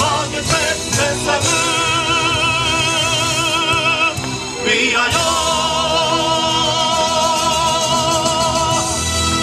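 A song with instrumental accompaniment: a singer runs through a few quick notes, then holds two long notes with a strong vibrato.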